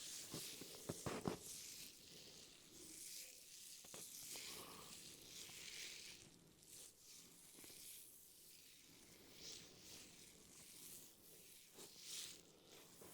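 Hands rubbing and pressing through hair and over the scalp during a head massage, giving faint, repeated soft swishes. A quick cluster of sharp clicks comes about a second in.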